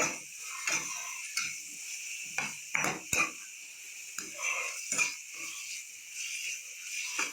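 A spatula scraping and knocking against a cheenachatti as sliced onions are stirred and sautéed in oil, in many short irregular strokes over a steady sizzle.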